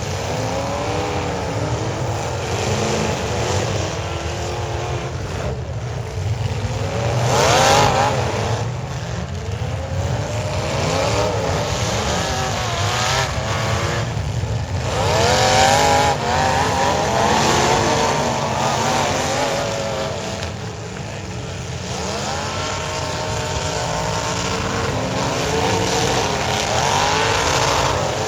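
Several demolition derby cars' engines revving at once, their pitches climbing and falling over one another, with louder surges about seven and fifteen seconds in.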